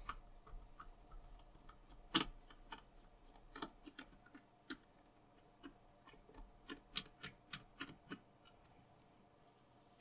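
Faint clicks of a screwdriver working a screw out of the plastic handle of a VAX 2000 vacuum cleaner. There is one sharper click about two seconds in, then a run of quick clicks, about three a second, from around six to eight seconds in.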